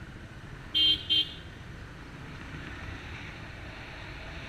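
Two quick toots of a motorcycle horn about a second in, over the steady engine and wind noise of a motorcycle riding along.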